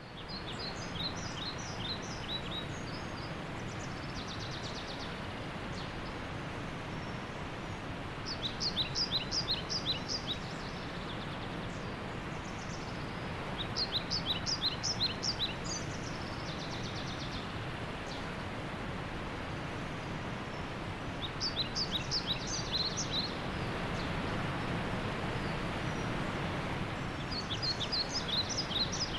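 Waterfall rushing steadily, with a bird singing a burst of rapid, high chirping notes every few seconds, five times in all.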